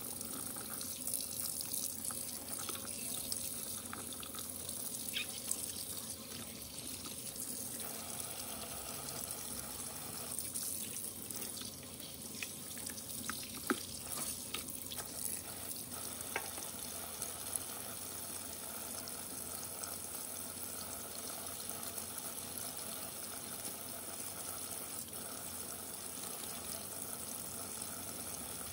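Kitchen tap running steadily into a stainless steel sink, with a few light clicks and knocks now and then from handling the fish.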